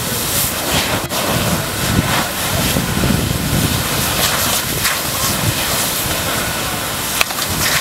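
Steady rushing and hissing of firefighters' hoses spraying water onto a burning car, with a sharp crack about a second in and another near the end.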